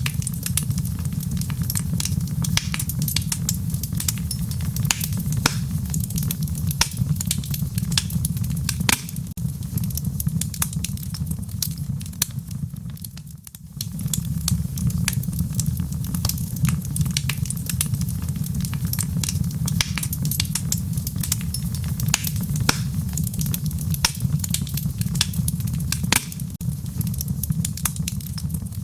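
Wood fire burning in a fireplace: a steady low rumble of the flames with irregular sharp crackles and pops. The rumble briefly fades about halfway through, then returns.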